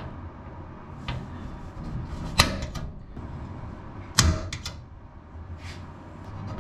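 Center punch snapping against aluminium rivet heads on an aircraft spar: a few sharp clicks at irregular intervals, the loudest about two and a half and four seconds in. It is marking the centres of the bad rivets so the drill bit has a place to start.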